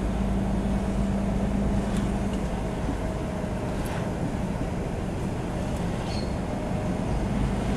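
Car driving slowly, with steady engine and road noise heard from inside the car. A low engine hum drops away about two and a half seconds in and returns near the end.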